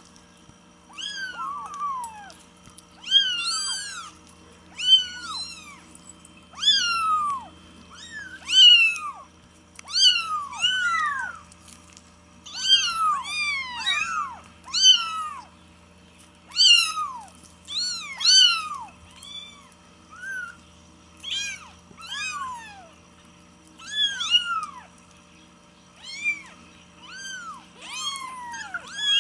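Baby kittens mewing over and over, high thin calls that rise and fall, about one or two a second and sometimes overlapping.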